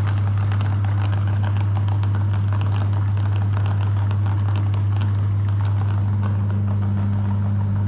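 Electric meat grinder running with a steady motor hum, with a light crackling and clicking over it.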